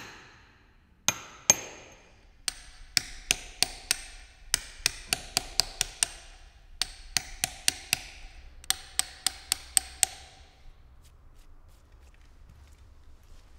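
Stonemason's iron hammer driving a steel chisel into granite. A run of sharp, ringing strikes comes at an uneven pace of about two to three a second and stops about ten seconds in.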